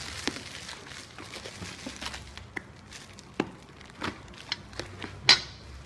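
Parcel packaging being handled and unwrapped: scattered crinkling and rustling clicks, with one sharper, louder crackle about five seconds in.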